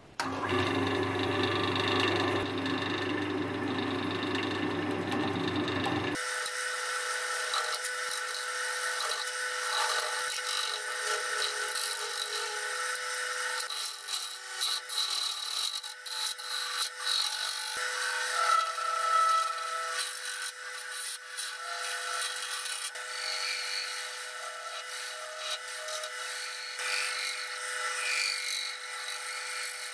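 Axminster wood lathe switching on and running with a low hum. From about six seconds in, a steel turning tool cuts the spinning epoxy resin blank: a steady motor whine under a rough, hissy cutting noise that comes and goes as the tool is worked along the piece.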